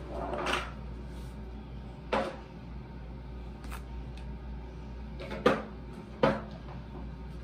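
Four short knocks and clunks of small items being picked up and set down on a bathroom vanity countertop, one near the start, one about two seconds in and two close together near the end, over a steady low hum.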